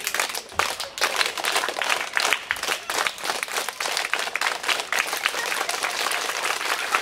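A large crowd of children and adults clapping their hands together, a dense run of many overlapping claps.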